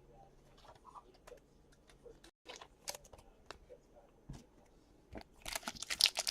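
Light clicks and taps of trading cards being handled, then, about five and a half seconds in, the loud crinkling and tearing of a card pack wrapper being ripped open.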